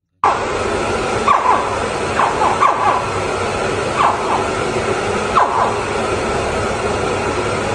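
Hatchling crocodiles giving short, high chirping calls, about eight of them at uneven intervals, over a steady hiss.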